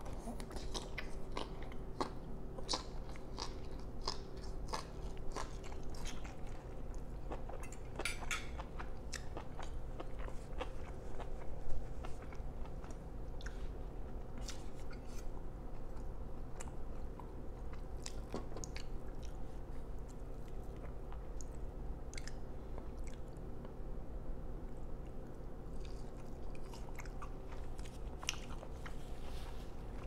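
Close-miked chewing and biting of steak and asparagus: a run of irregular wet mouth clicks and crunches over a faint steady hum, with one sharper, louder click about twelve seconds in.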